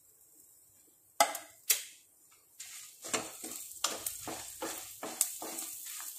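Wooden spatula stirring dry red chillies, coriander seeds, cumin and garlic frying in a little ghee in a non-stick kadai: two sharp knocks about a second in, then regular scraping strokes, about three a second, over a faint sizzle.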